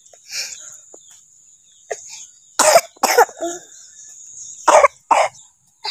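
A young child with a chesty illness coughing: two pairs of short coughs, the first about two and a half seconds in, the second near the end.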